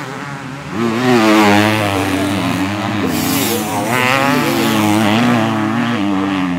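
Several 250cc motocross bikes racing past, their engines revving up and down in pitch as the riders work the throttle through a corner. The sound swells about a second in.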